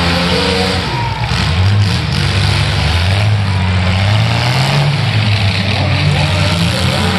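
Engines of small pickup trucks revving and running hard in a demolition derby, their pitch rising and falling.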